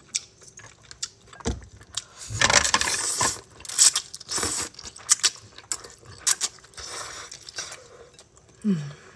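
Spaghetti noodles being slurped up from chopsticks, a few slurps with the strongest between about two and four and a half seconds in, amid chewing and light clicks of chopsticks.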